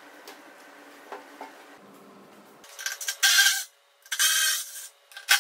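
Handling noise against a plastic wheel-well fender: two bursts of rubbing and scraping, about three and four seconds in, as a hand and a work light brush the plastic, with a sharp click near the end.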